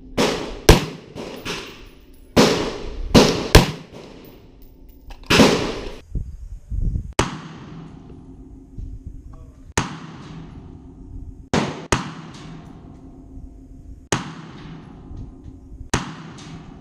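Bushmaster AR-15 in .223/5.56 firing through a Carlson Nitro Flash Enhancer muzzle device, about fifteen very loud gunshots, each with a short echoing tail. The shots come in quick succession over the first four seconds, then singly every second or two.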